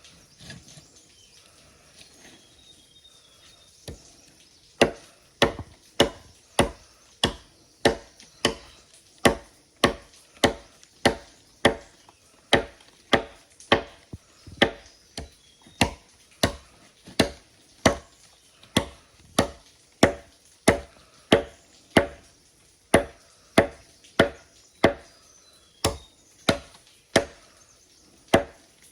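Steady chopping with a blade, about one and a half strokes a second, starting about five seconds in.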